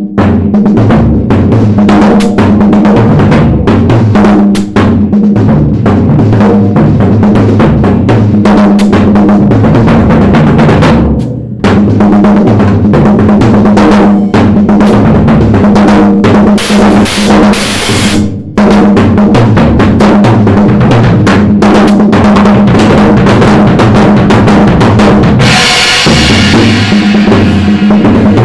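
Drum kit played hard in a fast, busy pattern of bass drum and snare with fills, stopping briefly twice. Cymbals wash out in the second half.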